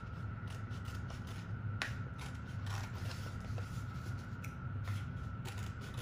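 Scissors snipping through construction paper in short, irregular cuts, with the paper rustling, over a steady low hum.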